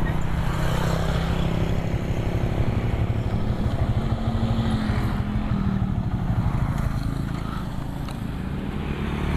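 Motorcycle engine running as the bike is ridden slowly, its note rising a little about halfway through and then easing off, getting slightly quieter near the end.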